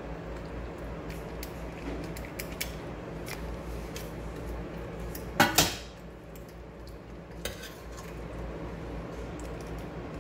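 A large metal serving spoon clinking and scraping against cookware as stir-fried chicken pieces are scooped and laid into a baking dish, in scattered light clicks with one louder clatter about halfway through.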